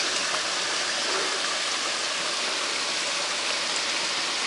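Shallow mountain creek running steadily, water splashing down a small rocky cascade.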